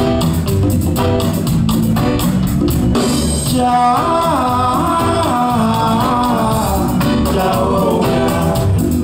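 Reggae band playing live, with electric guitar, keyboards, bass and drums in a steady rhythm. About three and a half seconds in, a lead melody line comes in above the band.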